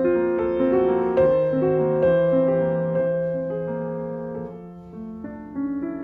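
Soft piano background music: single notes played one after another in a slow melody and left to ring, dying down about five seconds in before new notes come in.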